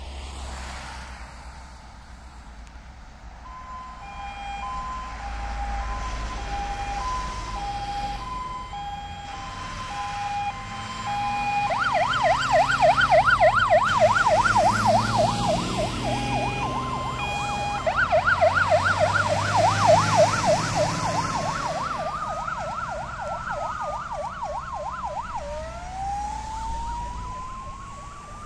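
Fire engines' sirens on an emergency run. A two-tone hi-lo siren starts about three seconds in, a fast yelp takes over near the middle, loudest as a truck passes close with its engine rumbling, and slow rising and falling wails follow as the trucks move off.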